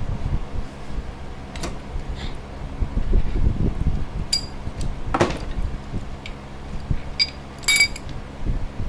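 Metal tools and parts clinking and knocking, a few strikes with a short metallic ring, over the steady hum of a fan.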